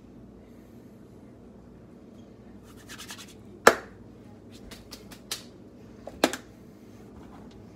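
Hands brushed and slapped together to shake off seasoning powder, with a few sharp clicks and knocks. The loudest come about three and a half and about six seconds in.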